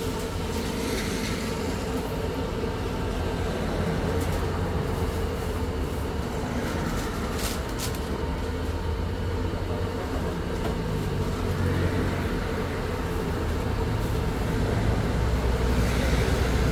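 Steady low rumble with a constant hum, like machinery running, and a short click a little past the middle.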